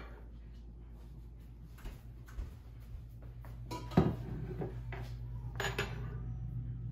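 Kitchenware being handled and set down at the stove: a quiet stretch with a few faint taps, one sharp knock about four seconds in, then a few light clinks near the end, over a steady low hum.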